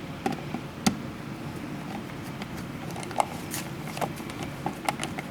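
Light, irregular clicks and taps of a plastic in-wall dimmer switch being handled and fitted into an electrical box, about half a dozen scattered knocks.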